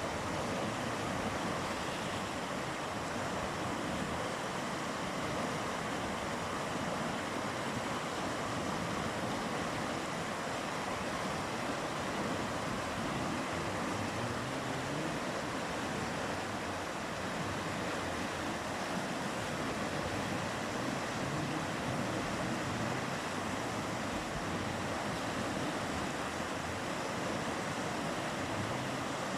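Mountain river flowing: a steady rushing wash of water that holds even and unbroken.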